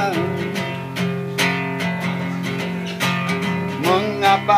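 Acoustic guitar strummed in an instrumental gap between sung lines, its chords ringing steadily. A man's singing voice comes back in near the end.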